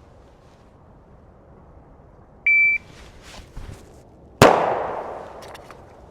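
A shot timer gives one short electronic beep. About two seconds later a single shot from a Glock 43X 9 mm pistol, drawn against the timer, goes off, and its echo fades over about a second.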